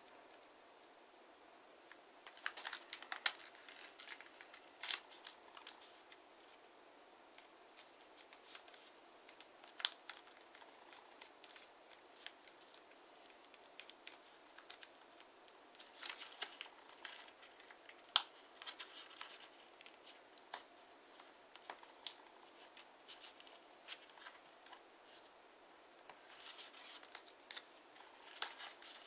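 Hands folding and creasing a sheet of dark TANT origami paper: soft rustling and crinkling with sharp little crackles as folds are pressed flat, coming in clusters a couple of seconds in, around the middle and near the end.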